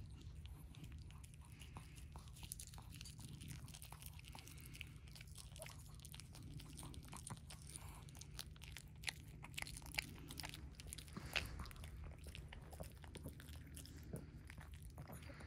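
Long-coat Chihuahua biting and chewing a crisp green leaf held out by hand: a run of small, crisp crunches, a few louder ones in the second half.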